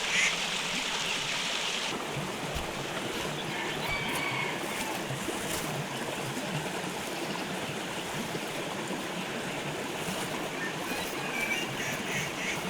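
Steady rushing of running water, with a few short bird calls near the end.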